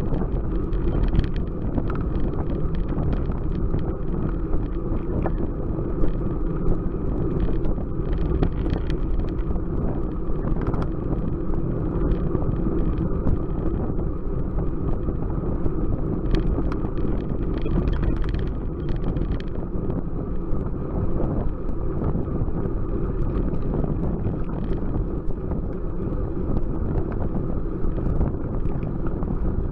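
Wind rushing over a bike-mounted camera's microphone on a road bike moving at speed, over a steady low road rumble, with scattered small clicks and rattles.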